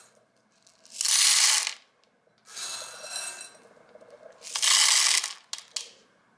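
Dried popcorn kernels poured by hand into the small steel chamber of a mini popcorn machine, rattling against the metal. There are three pours, the first and last loudest, with a few single kernels clicking near the end.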